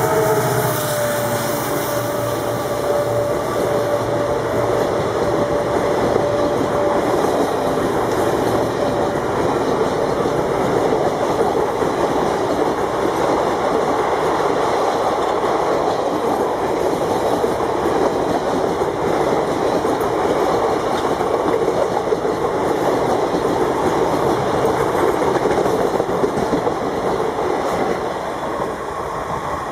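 A long diesel-hauled passenger train rolling past close by, its wheels clattering steadily over the rails. The locomotive's horn note dies away about a second in, and the noise eases slightly near the end.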